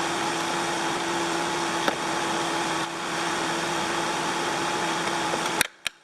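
Electric shop fan running with a steady rushing whoosh and hum, with a few light clicks of plastic door trim being worked loose. Near the end two sharp clicks come and the sound cuts out abruptly.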